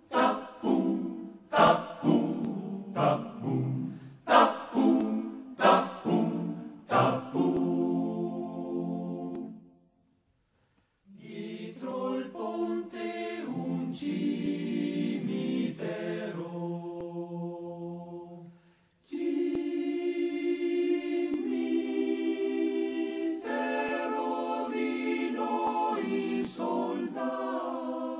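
A cappella choir singing a First World War soldiers' song. It opens with sharp, rhythmic sung accents, then moves to long held chords, with two brief breaks about ten and nineteen seconds in.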